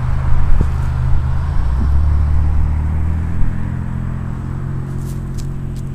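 Low, steady engine rumble from a motor vehicle, slowly fading.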